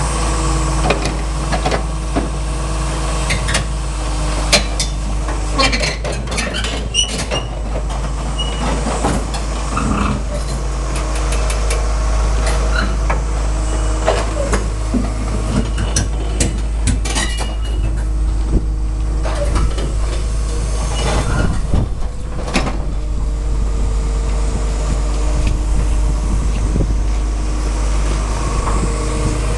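Komatsu PC228 hydraulic excavator's diesel engine running steadily while the machine travels, with repeated clanks, knocks and squeaks from its steel tracks, busiest through the middle stretch.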